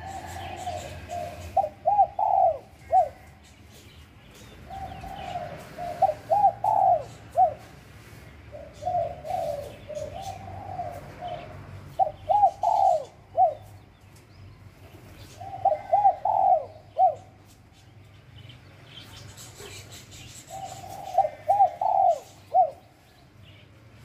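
Spotted dove cooing: a short phrase of several rising coos, repeated about every four seconds, five phrases in all.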